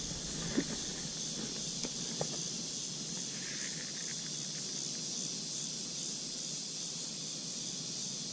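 Steady chorus of crickets and other insects heard as a high, even hiss, with a few faint clicks in the first two seconds.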